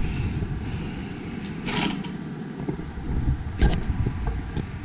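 Handling noise: low rubbing and scraping with two sharp knocks, about two seconds in and again near the end, as a rifle and its cardboard box with foam insert are handled.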